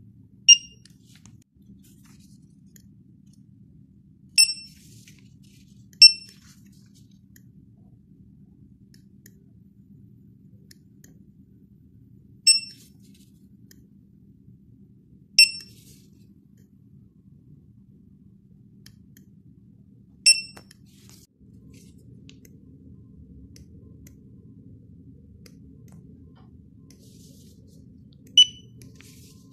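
Handheld barcode scanners beeping seven times at irregular intervals, each a short high-pitched good-read beep that signals a barcode has been decoded, over a faint low hum.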